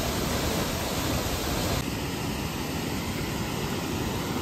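Steady rushing roar of Awosting Falls, a 65-foot waterfall, pouring into its plunge pool. About two seconds in the sound changes abruptly to a duller rush with less hiss.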